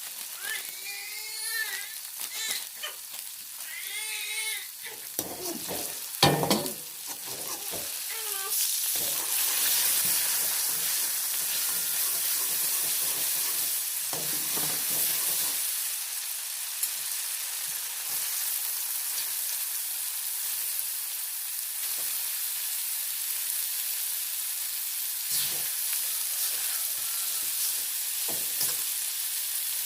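Food sizzling as it fries in hot oil, a steady sizzle that settles in after about eight seconds, with a few stirring scrapes. In the first several seconds a high, wavering voice comes and goes and there is one sharp knock.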